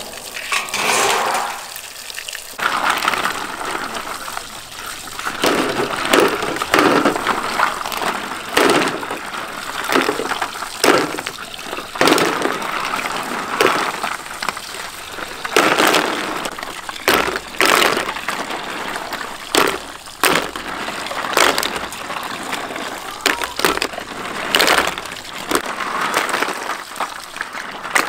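Snail shells clattering and clinking against each other and the aluminium basin as handfuls are stirred and scooped under running tap water, in irregular sharp knocks over the steady splash of the water.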